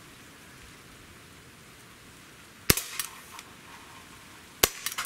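Two shots from an Umarex Glock 19X CO2 blowback BB pistol, about two seconds apart, each a sharp crack with the slide cycling; the first is followed by a brief rattle of small clicks.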